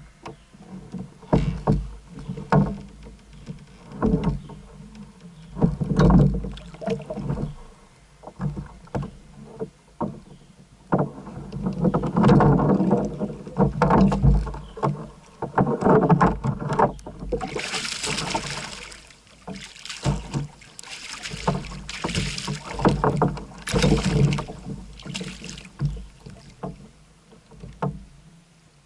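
Water splashing and knocking against a kayak's hull as a hooked catfish is grabbed and handled at the boat's side. The splashing comes in uneven bursts, loudest and hissiest about two-thirds of the way in.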